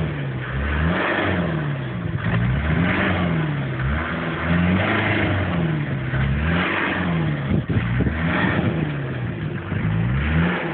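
A 4x4's engine revving up and down over and over, about every one and a half to two seconds, as the vehicle works to climb out of a deep muddy rut.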